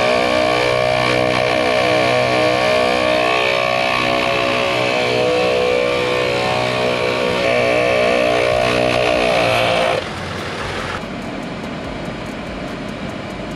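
ARB twin-motor on-board air compressor running steadily with a pulsing drone while it pumps air into the truck's tires. About ten seconds in, the sound drops sharply to a quieter, duller hum.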